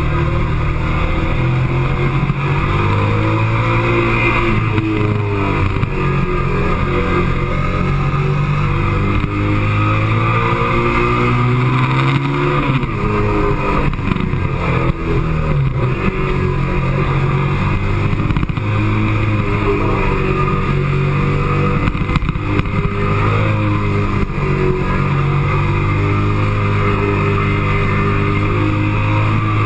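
Motorcycle engine heard from an onboard camera on the bike during a lap of a race track, revving up and dropping again and again through gear changes and corners, under heavy wind rush.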